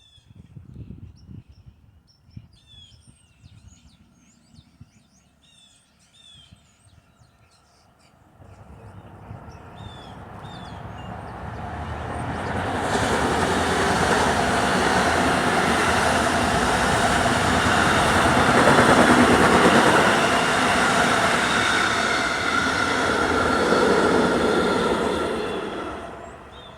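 A train passing: a dense rushing rumble with a few steady tones in it, swelling from about eight seconds in, staying loud for about twelve seconds, then fading near the end.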